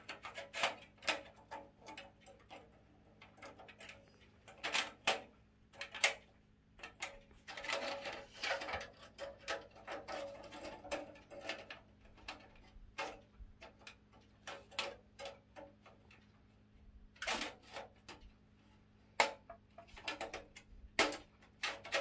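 Irregular clicks, taps and light metallic rattles of a thin metal I/O shield being pressed and snapped into the rear opening of a PC tower case, coming in short clusters.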